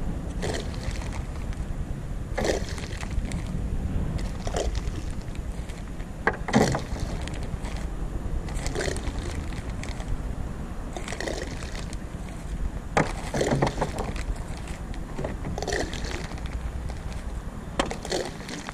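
Water sloshing and slapping against a small plastic boat's hull in short bursts about every two seconds, over a steady low rumble.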